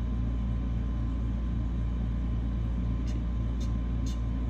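A steady low hum runs throughout. About three to four seconds in, a metal tool scratches the coating of a scratch-off lottery ticket in three short strokes.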